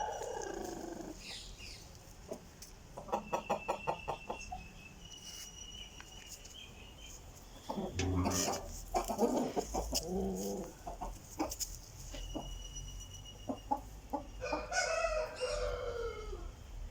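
Aseel rooster calling: a quick run of clucks about three seconds in, a louder call near the middle, and a longer call falling in pitch near the end.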